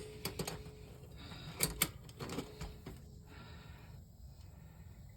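A few sharp clicks and light knocks from handling tools and parts while fitting a well-pump pressure switch, two of them louder about two seconds in, over a faint steady background.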